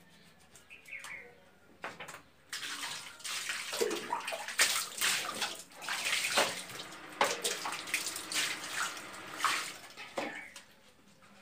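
Water poured from a plastic mug over bare feet, splashing onto a tiled floor in repeated pours. It starts about two seconds in and stops near the end.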